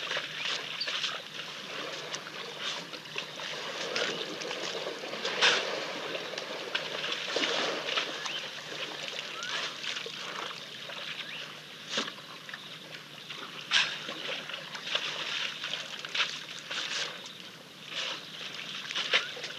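African elephants drinking and splashing at a waterhole's muddy edge: irregular water splashes and splats over a steady outdoor background, with a few sharper ones about five, twelve and fourteen seconds in.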